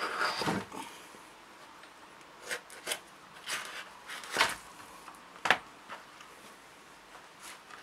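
A hunting knife cutting through a stiff dried animal hide. The hide rustles as it is handled in the first second, then comes a series of about six short, separate cutting strokes, the sharpest one about five and a half seconds in.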